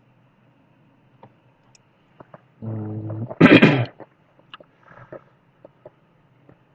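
A person's loud non-speech vocal sound about three seconds in: a short voiced hum, then a harsh blast of breath, sneeze- or cough-like. Sparse light computer-mouse clicks fall around it.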